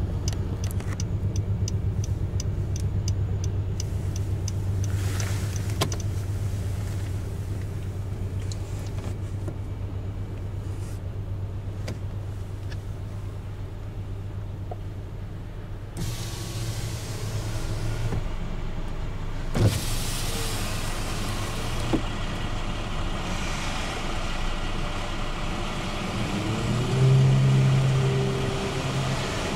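Freight train of wood-chip hopper cars rolling through a grade crossing: a steady rumble of wheels on the rails, heard from inside a car. A couple of sharp clanks come about two-thirds of the way through, and a steady hum joins in near the end.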